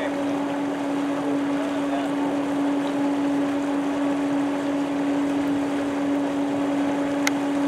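Water from a Godwin CD500M dewatering pump gushing steadily out of a large plastic discharge pipe into a pond, over a constant hum on one low pitch. There is one faint click near the end.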